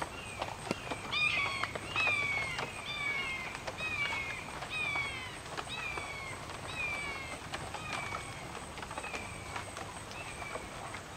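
An animal calling over and over: a short falling note with overtones, about one and a half calls a second, loudest in the first half and fading toward the end.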